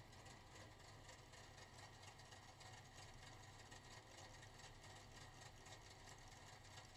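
Faint, muffled, steady low rumble of the mini stock race car's engine idling as the car rolls slowly.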